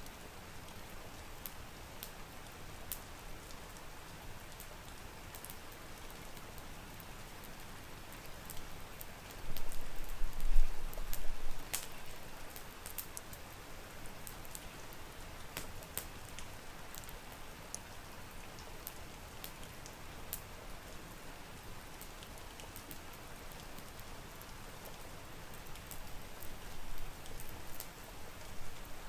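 Steady rain falling, with scattered sharp crackles and a brief loud low rumble about ten seconds in.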